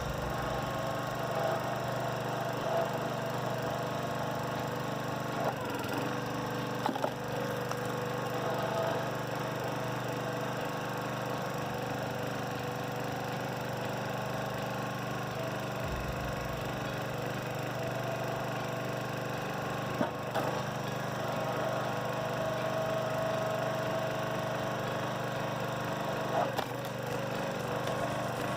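Small gas engine of a hydraulic wood splitter running steadily under load, driving the pump through a freshly replaced jaw coupling and spider bushing, with a few sharp cracks as logs split. The splitter is working again after the repair.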